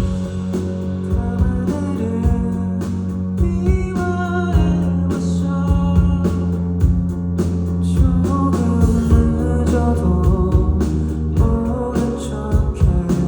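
Live band music at full volume: a steady drum beat over heavy bass, with guitar.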